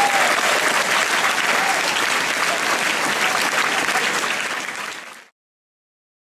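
Large audience of schoolboys applauding, with a few voices through the clapping; the applause fades out a little after five seconds in.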